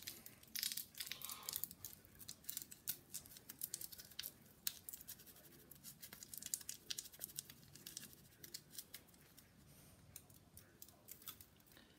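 Foil wrapper of an OXO beef stock cube being picked open and the cube crumbled between fingers: faint, irregular crinkling and crackling.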